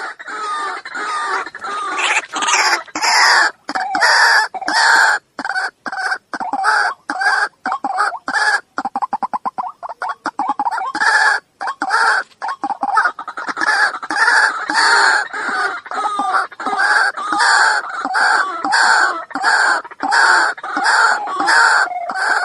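White-breasted waterhen calling: a long run of loud, harsh 'kruak' notes repeated about one to two a second, with a quick rattling stretch of fast notes about nine to eleven seconds in.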